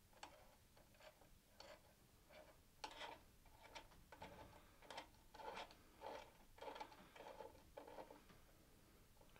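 Faint, irregular light clicks and short rattles of handling, about a dozen of them, most between about three and eight seconds in.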